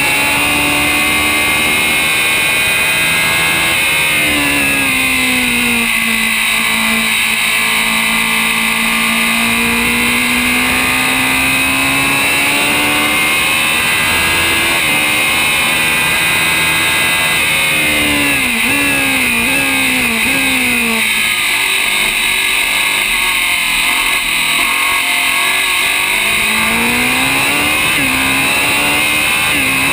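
Racing engine of a historic Grand Prix single-seater heard from on board at speed. Its note falls about four seconds in, climbs steadily through the gears, then drops in three quick downshifts past the middle before rising again near the end.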